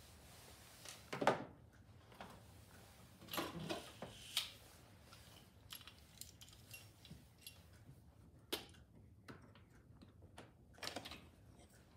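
Small clicks, taps and brief rattles of hard plastic and metal parts being handled as the end cap is worked off a Roman shade's track, a few sharper clicks spread through with quiet between them.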